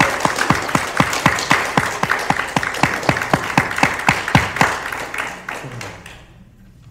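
Audience applauding, with one nearby pair of hands clapping loudest at a steady beat of about three claps a second; the applause dies away about six seconds in.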